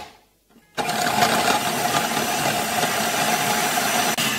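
Electric food processor starting up about a second in and running steadily with a constant motor whine as its blade purees tomato and a garlic clove; the sound breaks off for an instant near the end.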